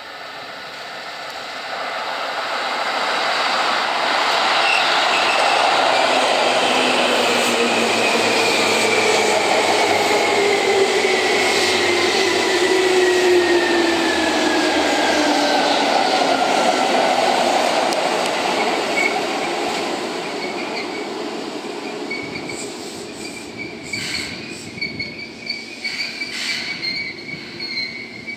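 Seibu 2000-series electric commuter train approaching and running past close by, its motors whining in a falling pitch as it slows. Near the end, high wheel and brake squeal with clicks as it comes to a stop.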